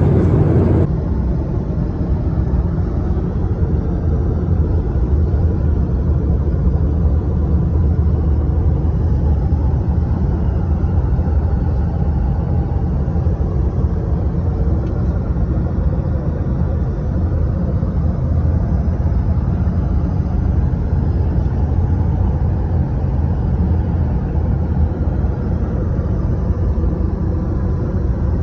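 Steady low rumble of a Boeing 737-800's cabin noise in flight: engine drone and airflow over the fuselage. It is slightly louder for about the first second, then even throughout.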